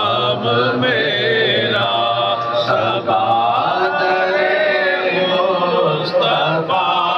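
Men's voices chanting an Islamic devotional recitation, a lead voice on a microphone carrying a held, sung melody without pause.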